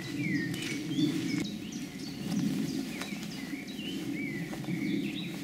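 Woodland ambience: birds singing, with short whistled notes repeated every second or so, over a steady low background noise.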